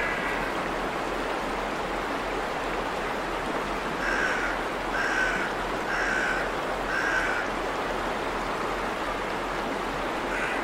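Water rushing over a river weir, a steady noise. About four seconds in, a bird calls four times, roughly once a second.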